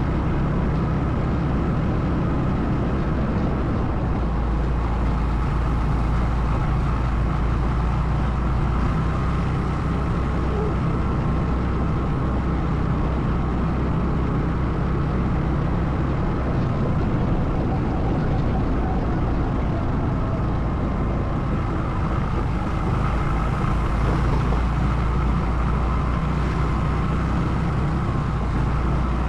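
ATV engine running steadily under way, with a constant low drone and road noise and no breaks.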